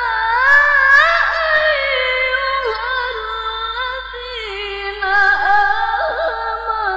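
A woman's voice reciting the Qur'an in melodic tilawah style through a microphone, unaccompanied: long, high held notes with ornamented turns. The line is loudest about a second in and steps down in pitch to a lower held note from about four seconds on.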